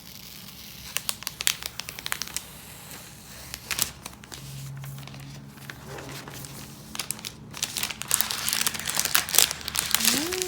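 Packaging wrap crinkling and rustling in irregular runs of small crackles as a new laptop is lifted out and unwrapped, busiest toward the end.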